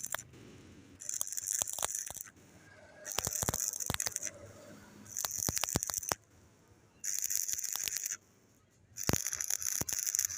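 Electric arc welding crackling in five bursts of about a second each, with short breaks between as the arc is struck and broken on a vertical weld.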